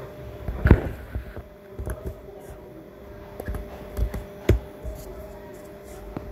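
Scattered computer mouse and keyboard clicks with low desk thumps as a command is copied, pasted and entered; the loudest come about a second in and just past the middle. A steady faint electrical hum runs underneath.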